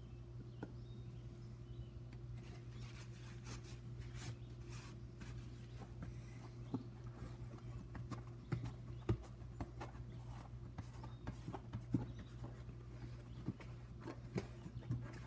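Hands turning and handling a rubber basketball, with irregular taps and scuffs of fingers on its pebbled surface, over a steady low hum.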